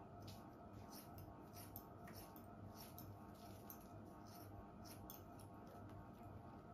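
Hair-cutting scissors snipping through a held section of long hair: a run of faint, irregular snips.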